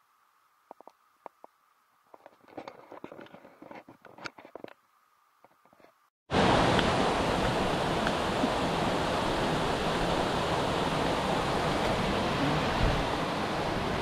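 Scattered faint clicks and rustles, then after a sudden cut about six seconds in, a loud, steady rush of flowing water from a jungle stream or waterfall.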